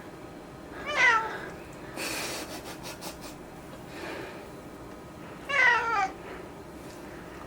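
Korean shorthair mackerel tabby cat meowing twice. There is a short meow about a second in and a longer, wavering meow a little after halfway, both falling in pitch.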